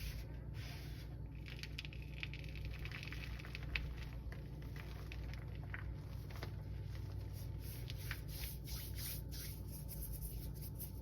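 Block of gym chalk being squeezed and crushed by fingers, giving a long run of short, soft squeaky crunches and squishes, over a steady low hum.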